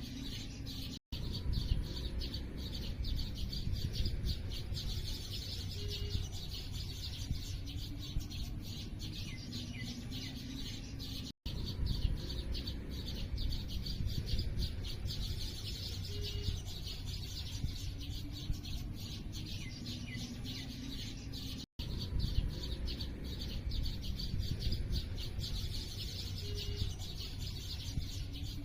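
A dense chorus of small birds chirping rapidly, with a few short low notes, over a steady low rumble. The same stretch of about ten seconds repeats as a loop, and each join is marked by a momentary dropout, three times.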